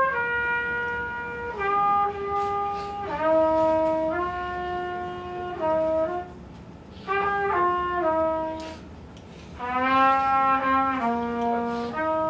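A single wind instrument plays a slow melody of long held notes, stepping from pitch to pitch in three phrases with short pauses between them.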